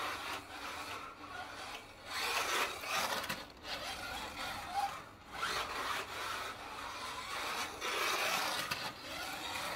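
A slot car running laps on a plastic track: its electric motor and pickup braids on the rails make a noisy hiss that swells and fades as the car passes close by and goes round again.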